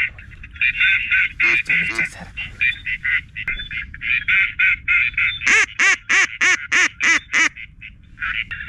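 Ducks calling, a quacking chorus of rapid repeated calls, with a louder series of about seven honking quacks in the middle.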